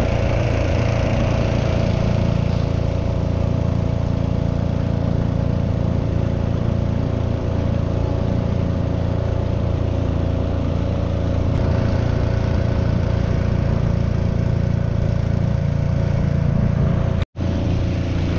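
Small boat's outboard motor running steadily at cruising speed, a constant drone that cuts out for an instant near the end.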